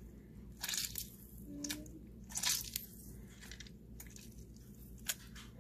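Half a lemon squeezed by hand over a bowl of marinated chicken: a few short, wet squelches as the fruit is pressed and its juice runs out.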